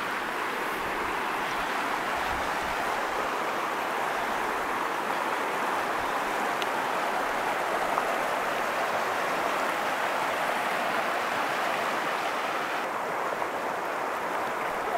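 Shallow, rocky mountain river rushing over stones and riffles: a steady, even rush of water.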